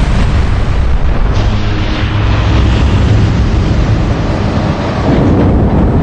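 Large turbofan engine in a fan blade-off test, running with a loud, steady roar and a heavy low rumble.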